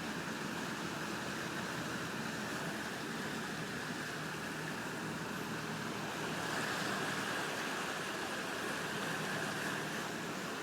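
Steady rush of fast-flowing floodwater from a swollen river, a little louder about six seconds in.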